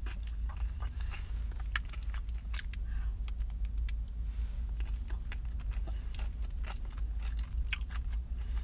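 Biting and chewing a chocolate-coated ice cream bar studded with crisp pieces: sharp, irregular crunching clicks. A steady low rumble from the car runs underneath.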